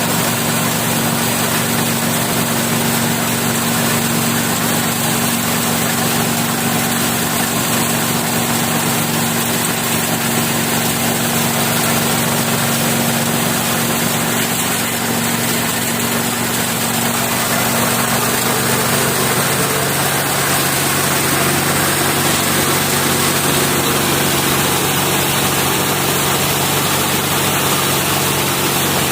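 KD-580S rice milling machine, driven by its 7.5 HP MGX-210 engine, running steadily while milling paddy. The machine noise is loud and even throughout. The engine's hum settles to a lower note about two-thirds of the way through.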